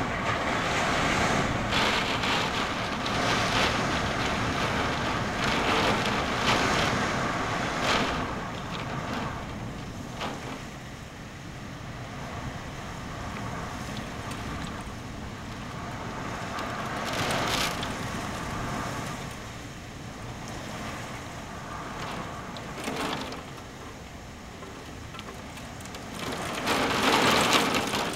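Thunderstorm front arriving: gusty storm wind and heavy rain, a rushing noise that swells and eases with the gusts. It is loudest over the first several seconds, drops in the middle, and rises again near the end as the downpour thickens.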